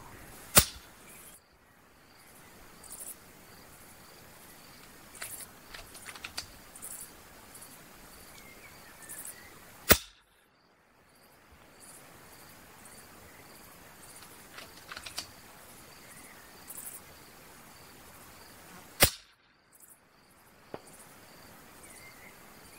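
A .25 calibre FX Impact MkII PCP air rifle fired three times, about nine seconds apart, each shot a single sharp crack. Faint insect and bird chirps in the quiet between shots.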